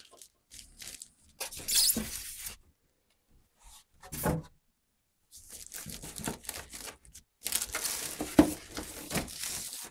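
Packaging being handled: a polystyrene insert scraping against the cardboard box, a knock a little after four seconds, then several seconds of plastic wrapping rustling and crinkling as a wrapped appliance is lifted out.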